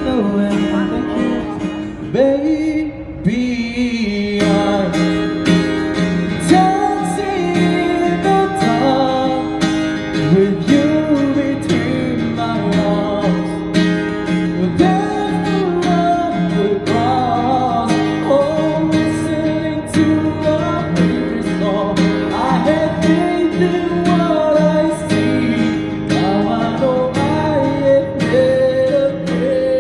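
A man singing live with a strummed acoustic guitar. About three seconds in there is a short break where one song clip gives way to another.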